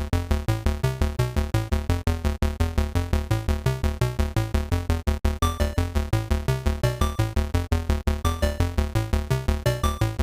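Electronic background music: quick, evenly spaced synthesizer notes over a strong bass line.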